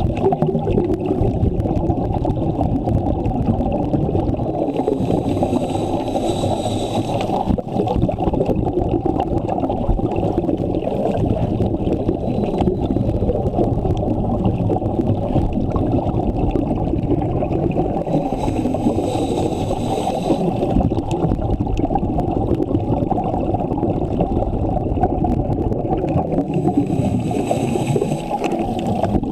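Underwater sound of scuba diving: a steady low rumble of water and bubbles against the camera, with three hissing breaths through a scuba regulator, about five seconds in, about nineteen seconds in, and near the end.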